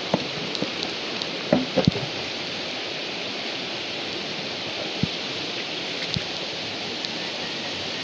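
Steady rushing of a fast-flowing jungle river, with a few sharp clicks and snaps from footsteps and handling, clustered about one and a half to two seconds in.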